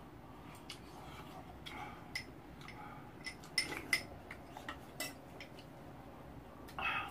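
Metal spoons and chopsticks clinking and scraping against bowls and a rice pot while eating: a scatter of light clicks with a few sharper ringing clinks around the middle, two of them close together. There is a brief duller sound near the end.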